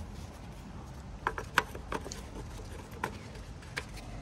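Plastic oil filler cap being set on and twisted shut on a Lincoln MKZ engine's fill neck. It gives a quick run of sharp plastic clicks about a second in, then two single clicks near three and four seconds.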